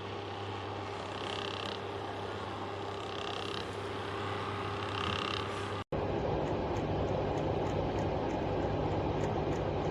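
Electric fan heater running: a steady rush of fan noise with a low motor hum. The sound drops out for an instant about six seconds in and comes back slightly louder.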